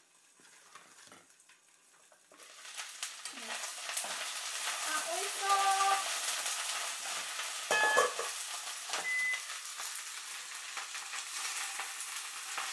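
Nanohana (rapeseed greens) frying in garlic oil in a frying pan. The sizzle jumps up suddenly about two seconds in, as the lid comes off, then keeps on while the greens are tossed with wooden chopsticks. There is a sharp clatter near eight seconds.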